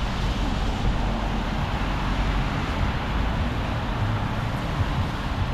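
Steady city street traffic: engine rumble and the hiss of tyres on a wet road.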